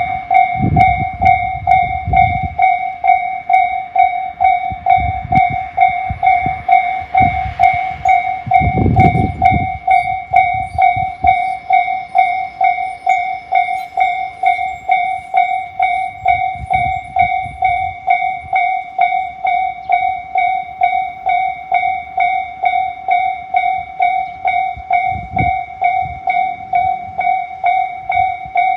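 Electronic Japanese level-crossing alarm of the Tobu Tojo Line type, ringing steadily with a high ding repeated about twice a second, warning that a train is coming. Low rumbles come and go underneath, strongest in the first two seconds and around nine seconds in.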